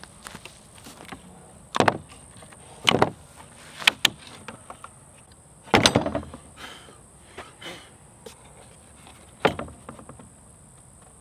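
Wooden 2x4 boards and clamps knocking against a plywood worktable as they are unclamped, lifted and set down, about five heavy knocks, some in quick clusters. A steady high insect drone goes on underneath.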